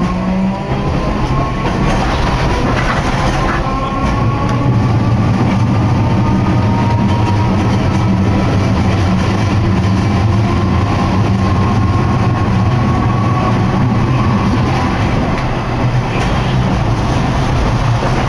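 Hakodate city streetcar running, heard from inside the car: a steady low rumble, with a thin motor whine that slowly rises in pitch as the tram gathers speed.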